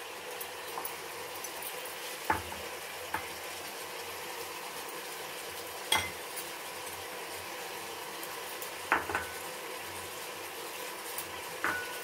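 Mutton and onions sizzling steadily in oil in an aluminium pressure cooker, with about five sharp, briefly ringing clinks as glass spice bowls and a spoon knock against the pot.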